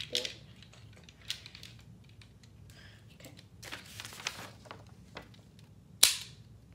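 LEGO rubber-band bolt-action rifle being worked: plastic clicks and a brief rattle as the bolt is cycled to eject a round and reload, then about six seconds in a single loud, sharp snap as it fires its brick round at a sheet of paper.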